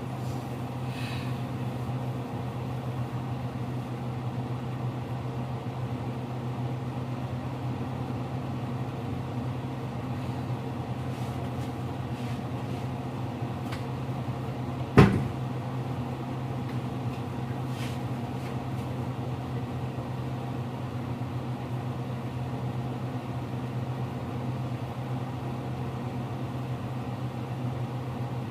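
Steady low hum of a kitchen appliance running, with one sharp knock about halfway through.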